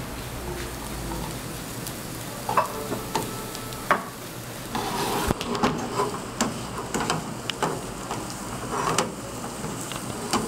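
Sliced mushrooms and garlic frying in butter in a frying pan, sizzling steadily, while a slotted plastic spatula stirs them, scraping and knocking against the pan with many sharp clacks from about two and a half seconds in.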